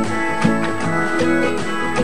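Instrumental music with plucked guitar notes over a regular beat: the programme's break music under the show logo.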